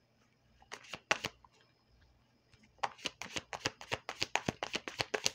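Tarot cards being shuffled by hand. A couple of crisp card snaps come about a second in, then from about three seconds in a quick, steady run of card slaps, about seven a second.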